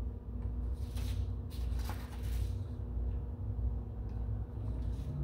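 Steady low rumble with a faint, even hum, and a few faint brief handling noises about one and two seconds in.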